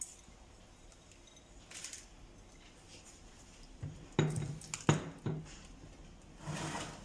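Kitchen handling sounds: a few short knocks and clinks of dishes or utensils, four in quick succession about four to five seconds in, with soft rustling before and after.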